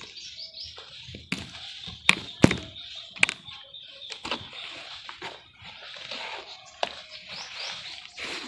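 Sand-and-cement shapes crumbling and cracking as they are handled and dipped, with several sharp cracks and knocks over a steady fizzing hiss, while birds chirp in the background.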